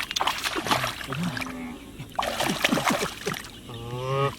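Water splashing and sloshing in irregular strokes as hands grope for fish in a flooded, muddy rice field. A brief voice sounds near the end.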